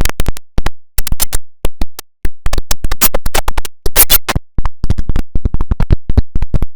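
The IBM OS/2 Warp 3 shutdown sound chopped into a rapid, stuttering string of short snippets, several a second, with brief gaps of silence between them, like a glitch or scratch edit.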